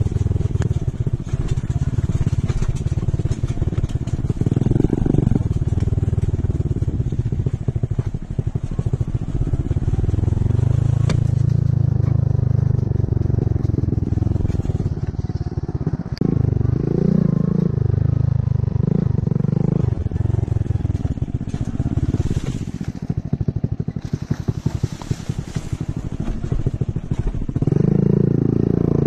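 Motorcycle engine running steadily, its pitch rising and falling now and then with the throttle.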